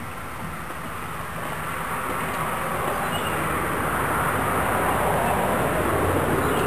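Stainless steel pot of cowboy coffee heating over an alcohol stove: a steady rushing hiss that grows gradually louder as the water comes toward the boil.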